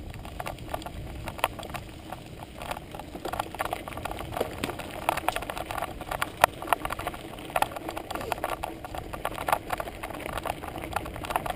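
Bicycle ridden along a bumpy dirt woodland trail: dense, irregular rattling and clicking as the bike jolts over the ground, over a steady low rumble of tyre noise.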